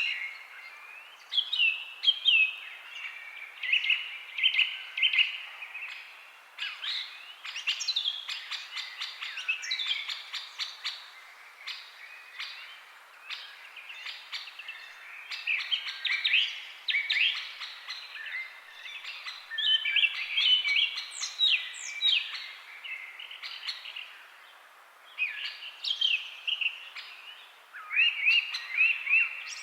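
Birds chirping and singing in a continuous run of short, quick high-pitched phrases, with brief gaps between them.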